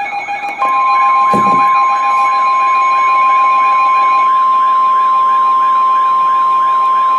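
Weather radio alert: the NOAA Weather Radio warning alarm tone, a single steady high-pitched tone starting about half a second in and held for several seconds, marking a new warning about to be read. Under it runs a warbling electronic alarm tone, and a steadier tone pair that stops about four seconds in.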